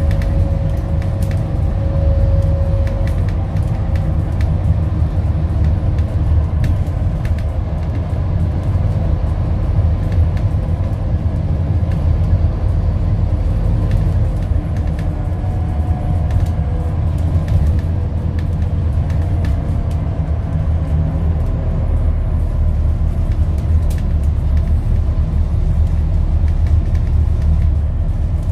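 Scania N230UD double-decker bus running, a steady deep rumble from its five-cylinder diesel engine with small rattles and clicks throughout. A faint thin whine comes and goes near the start and again around the middle.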